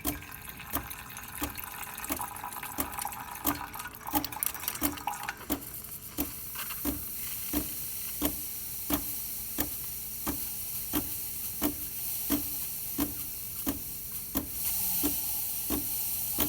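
DeLonghi Magnifica espresso machine in steam mode: its pump pulses in regular clicks about one and a half times a second while the steam wand purges water with a splashing hiss for the first several seconds. A steam hiss builds near the end as the wand starts delivering steam.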